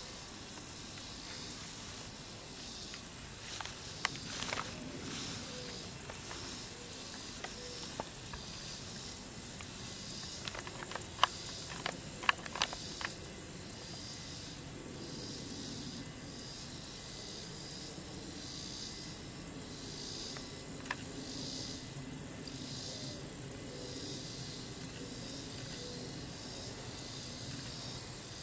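Insects chirring in a grassy summer field: a steady high drone with a pulsing chorus that beats about once a second. A few sharp clicks come about halfway through.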